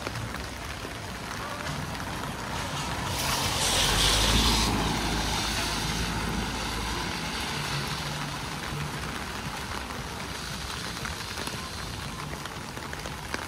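A vehicle passes on a wet road: a swell of tyre hiss with a low rumble, peaking about four seconds in and fading slowly, over steady rain.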